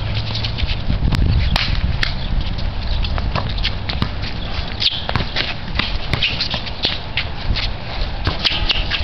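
Outdoor pickup basketball: scattered sharp knocks of the ball bouncing and of sneakers on the concrete court, at an irregular pace, over a steady low rumble.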